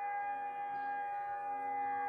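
Air-raid sirens holding a long, steady tone, with several pitches overlapping; sounded as the mourning signal on a national day of mourning.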